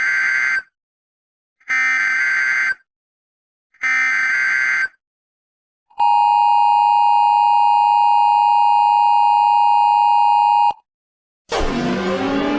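Emergency Alert System broadcast tones: three one-second screeching SAME header data bursts, then the steady two-tone EAS attention signal for about five seconds, cutting off abruptly. Near the end a music track with electric guitar starts.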